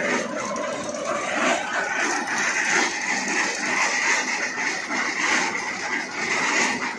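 Single-cylinder Honda GX petrol engine running a belt-driven cement mixer, steady and very noisy, going too fast for the mixer. Near the end a hand works the engine controls and the sound begins to fall away as the engine is shut down.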